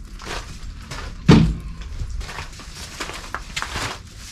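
Lumber being handled: a loud wooden thump about a second in, with scattered lighter knocks and rustles around it.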